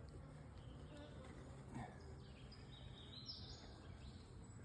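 Faint, steady buzzing of honeybees from an open NUC hive whose frames are being inspected.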